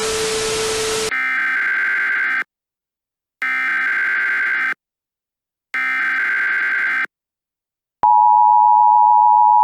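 Emergency Alert System alert opening: about a second of static, then three short bursts of buzzy SAME digital header tones with silent gaps between them. About eight seconds in, the loud, steady two-tone EAS attention signal begins.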